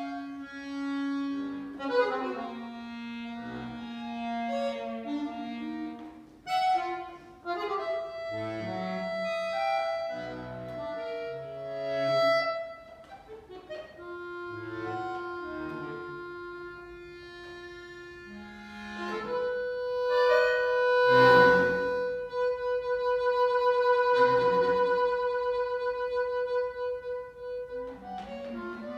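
Solo concert accordion playing a contemporary piece: short detached notes and held reedy tones, then in the last third a long sustained chord that swells louder and falls back.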